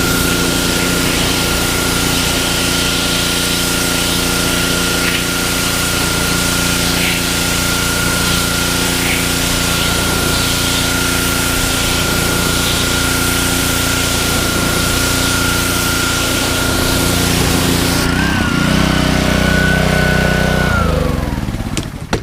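Gas-engine pressure washer running steadily with a constant high whine and spray hiss. About eighteen seconds in the hiss drops away, and near the end the engine's pitch falls as it shuts down.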